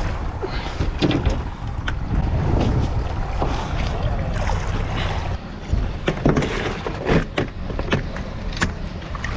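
Wind buffeting the microphone on a kayak at sea, a steady low rumble with the wash of water, broken by scattered sharp knocks and splashes against the hull.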